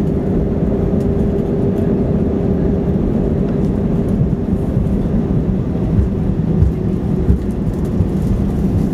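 Airbus A320 cabin noise during the landing rollout: a steady low rumble of the engines and wheels on the runway, heard through the cabin over the wing. A steady engine tone fades out about seven seconds in as the engines spool down, and a few light thumps come near the end.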